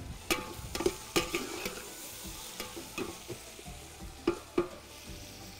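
A metal spoon stirring onions frying in oil in a steel pot: a steady sizzle with sharp clinks and scrapes of the spoon against the pot, several in the first two seconds and two more just past four seconds in.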